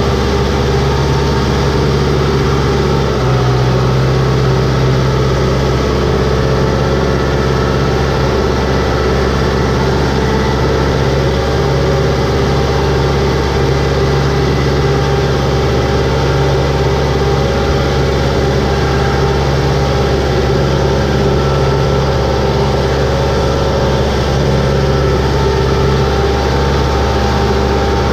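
Tractor's diesel engine running steadily under load, heard from the driver's seat, as the wheels churn through water and mud in a flooded rice paddy.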